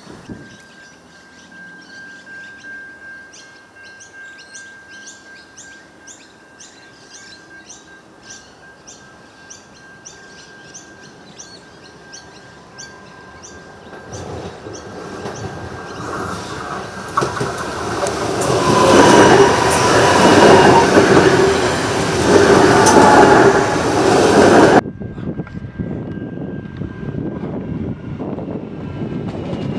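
Adelaide Metro 4000-class electric train approaching and passing, its wheel-and-rail noise building to a loud rumble and rattle with some wheel squeal. Before it arrives, level-crossing warning bells ring rapidly over a steady tone. The sound drops suddenly near the end, and the train runs on more quietly past the fence.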